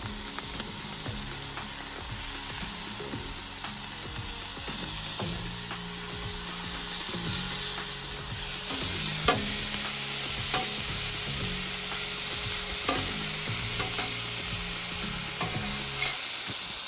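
Eggs frying in a pan: a steady sizzling hiss, with a spatula clicking and scraping against the pan about once a second.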